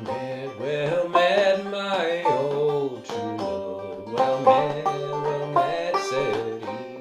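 Five-string banjo played clawhammer style in Double C tuning, picking a minor-key melody in C minor. A voice sings a line over it twice, about a second in and again about four seconds in.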